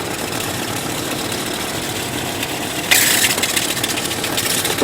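1998 Chevrolet Cheyenne K2500 engine idling steadily with a noise from the alternator, which the owner says sounds like it's going, probably a bad bearing. About three seconds in, a hissing rustle joins in.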